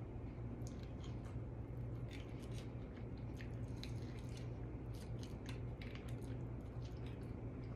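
Close-miked eating sounds from a seafood boil: scattered sharp clicks and crackles as food is handled, bitten and chewed, over a low steady hum.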